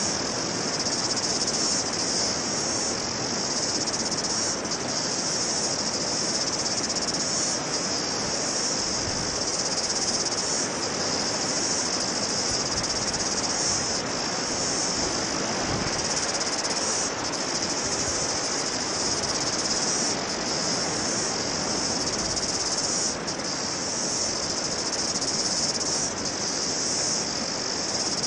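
A steady high-pitched insect chorus, dipping briefly every couple of seconds, over an even outdoor hiss of wind and surf.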